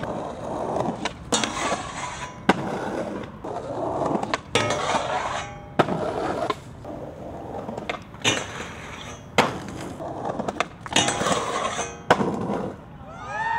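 Skateboard wheels rolling on concrete, broken by many sharp clacks of the board and trucks striking the ground and a metal handrail as the skater tries grinds on the rail several times.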